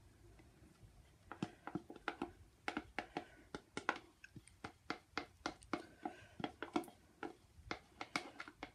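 Light, irregular clicks and taps, about three a second, of a plastic stirring stick and plastic cups being handled while resin is mixed with colour paste.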